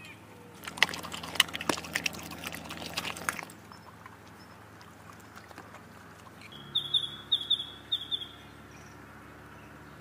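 A dog eating from a bowl: a run of quick wet clicks and crunches for about three seconds. Later a bird calls a short series of high notes, five or so in quick succession.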